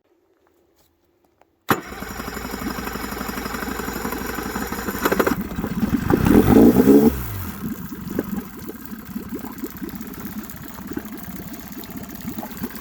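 A Yamaha 9.9T extra-long-shaft outboard motor starts abruptly about two seconds in and runs. It grows louder around the middle, then drops back to a steady idle. It is a first start after sitting through the winter, and it starts readily.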